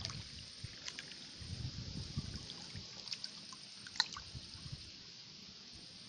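Hands scooping mud and sloshing in shallow muddy water, with splashes and dribbling water as the mud is dug out by hand. A sharper splash comes about four seconds in.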